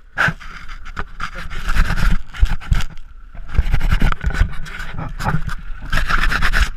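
A man panting hard, his breath rushing in and out, with scraping and knocking as his hand and shirt rub against the action camera.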